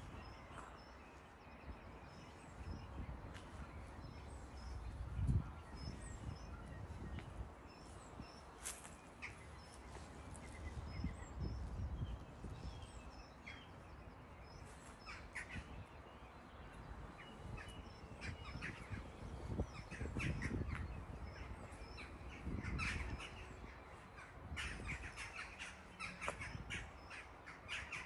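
Wild birds calling in the countryside: a small bird repeats a short high note through the first half, and a run of louder, denser calls comes near the end. Underneath is a low rumble that swells now and then, loudest about five seconds in.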